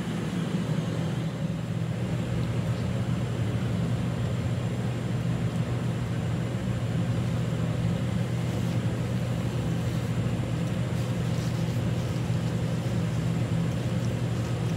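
Steady low hum of commercial kitchen machinery, unchanging throughout.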